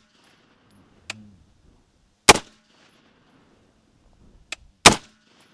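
Two unsuppressed .308 Winchester shots from a short-barrelled CMMG MK3 AR-10 pistol, about two and a half seconds apart, each a sharp crack with a brief echo. A fainter click comes shortly before each shot.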